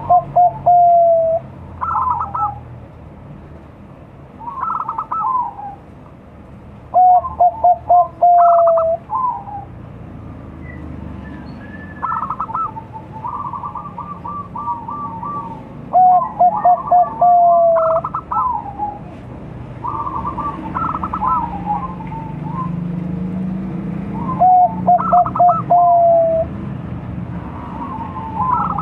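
Young Bangkok-strain zebra dove (perkutut) cooing in repeated phrases. Each phrase is a few quick stuttering notes, a rolling trill, and a longer falling coo, coming about every eight seconds. Softer coo phrases fill the gaps between them.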